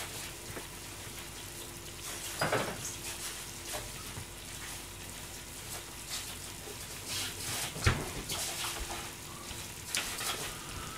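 Kitchen washing-up: a steady hiss of running water, with dishes and pans knocking a few times. The loudest knock comes about two and a half seconds in, and more come near eight and ten seconds.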